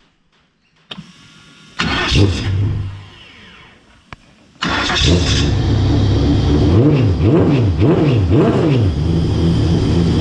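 Wingless sprint car engine being started after new ignition wiring. A brief loud first burst comes about two seconds in. Halfway through the engine fires and keeps running while the throttle is blipped, the revs rising and falling over and over.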